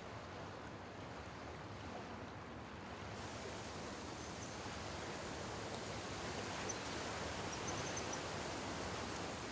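Soft, steady outdoor ambience: an even rush of background noise that brightens after about three seconds, with a few faint high chirps in the second half.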